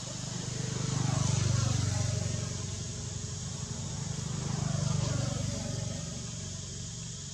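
Low engine hum of passing motor vehicles, swelling twice: once about a second in and again about five seconds in. Under it runs a steady high hiss.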